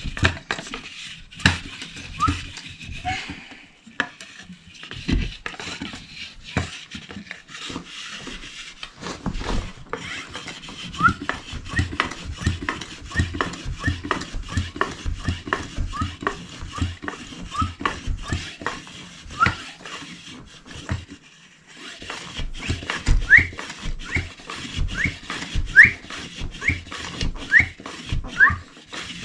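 Hand-held pressure vessel pump worked in quick strokes: a knock on each stroke, many with a short rising squeak. It pauses briefly about three quarters of the way through, then the squeaks come louder.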